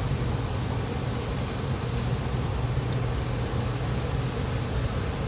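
Steady low machine hum with an even hiss, the room's constant background noise.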